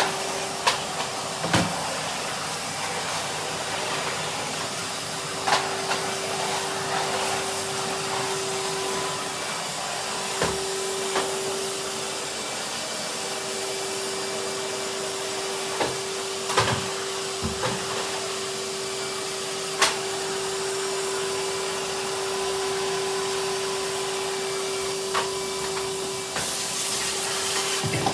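Numatic Henry cylinder vacuum cleaner running steadily with a constant motor hum and rushing suction, its nozzle knocking against things now and then. Near the end the suction hiss grows louder.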